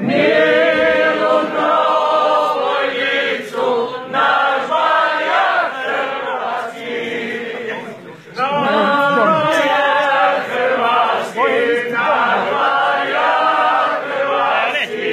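Unaccompanied singing of a Croatian song, led by a man's voice, in drawn-out phrases. The singing breaks off briefly twice, about four and eight seconds in.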